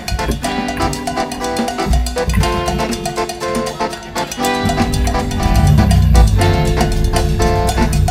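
Background music with a steady drum beat and a heavy bass line that comes in about halfway through.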